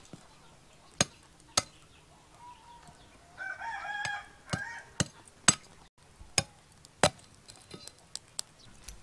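A dozen or so sharp, irregular knocks of a large knife blade striking lumps of charcoal on the ground. A rooster crows once in the background about three and a half seconds in.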